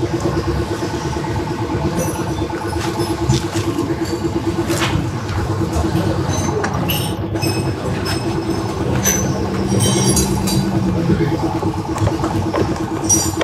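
A steady mechanical drone with a fast, even pulse, like a running engine or machine, goes on throughout. Scattered small clicks and scrapes from a screwdriver working the fairing bolts sound over it.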